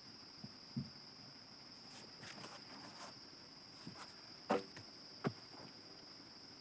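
Lull with the chainsaw off: a steady faint high-pitched whine runs throughout, broken by a few scattered knocks and thuds, the loudest about halfway through and another shortly after.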